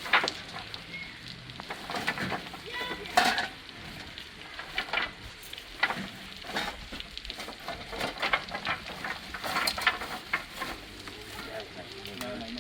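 Irregular clattering and scraping, with sharp knocks and clicks a second or so apart over a crackly rustle.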